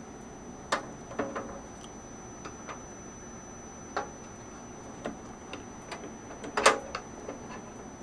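Irregular light clicks and knocks of hands working a PCIe USB expansion card and the metal slot covers in a desktop PC case's expansion slots, with the loudest clack a little before the end.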